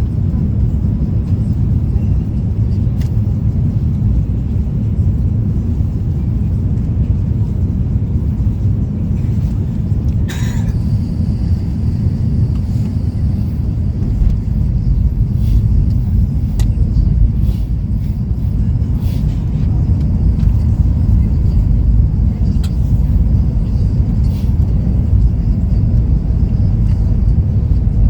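Steady, loud low rumble of a vehicle in motion, with scattered faint clicks and one short sharp sound about ten seconds in.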